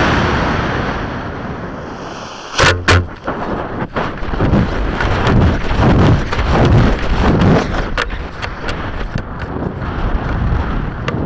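CTI Pro38 266H126 rocket motor's exhaust noise fading away as the motor burns out, with two loud pops close together about two and a half seconds in. Then gusty wind rushing over the rocket's airframe and onboard camera as it coasts upward.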